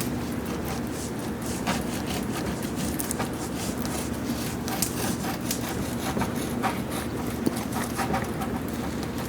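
Wax cappings being cut and scraped off a frame of honeycomb with an uncapping tool: short, irregular scrapes and clicks over a steady low hum.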